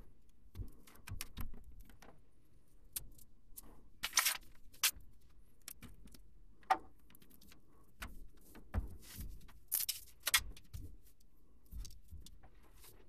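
Rustling and crackling in fiberglass attic insulation as someone moves through it, with scattered knocks and scrapes. A few louder crackly rustles come about four seconds in and again near ten seconds.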